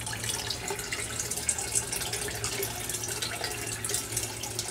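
Leach solution pouring steadily from a tube into the leach tank, a continuous splashing of liquid over a steady low hum.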